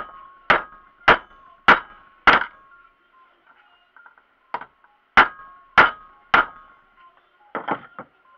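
Steel hammer striking a 16 mm socket to drive a universal-joint bearing cup out of a VAZ 2104-series propeller shaft yoke held in a vise. Five sharp blows land about half a second apart, then after a pause of about two seconds come four more and two lighter ones near the end, each with a metallic ring.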